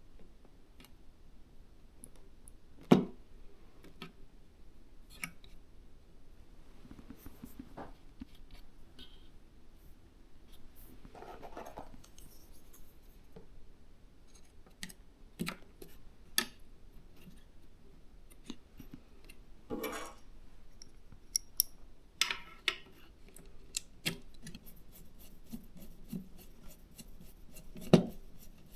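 Small clicks, taps and scrapes of hands handling computer parts while an SSD is being fitted to a motherboard, with a sharp knock about three seconds in and another near the end.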